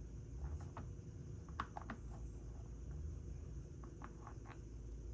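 Light clicks and taps from handling the generator's oil fill cap and dipstick while checking the oil level, over a low steady hum.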